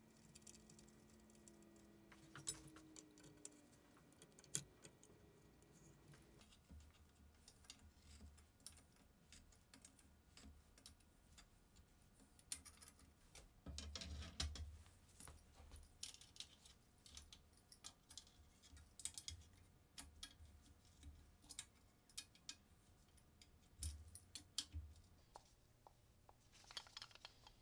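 Faint, scattered clicks and taps of cast-iron scroll-saw parts being handled and fitted together, over near silence, with a short busier run of knocks about halfway through.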